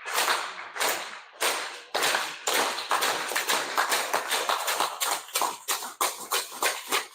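A run of sharp, irregular clicks or claps, about two a second at first, then coming faster and denser.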